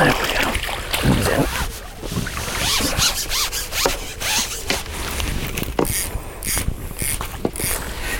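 A small hooked mirror carp splashing and thrashing at the surface as it is played to the landing net, with irregular clicks and knocks from the tackle and net.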